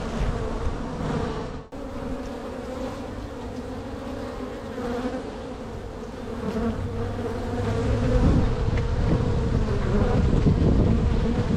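Honeybees buzzing in a steady hum around an open hive during a frame inspection. A low rumble underneath grows louder about eight seconds in, and the sound cuts out for a split second near the start.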